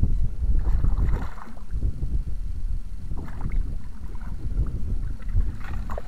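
A hooked fish splashing at the water's surface several times as it is drawn into a landing net, over steady wind rumble on the microphone.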